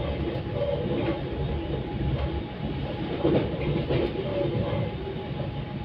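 A passenger train running at speed, heard from inside the carriage: a steady rumble of wheels on the rails, with a few scattered clicks and a faint steady whine.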